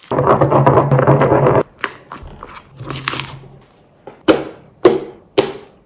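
Crunching and crushing: a dense, loud crunch for the first second and a half, then small scattered crackles, and near the end four sharp crunches about half a second apart.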